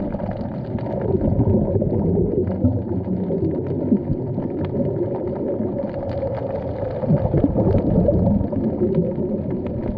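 Muffled underwater sound through a camera's waterproof housing: a steady low rumble of water with bubbling and churning, louder in two stretches, with faint scattered clicks.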